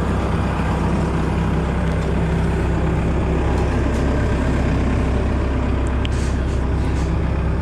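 Diesel engine running steadily at a constant speed.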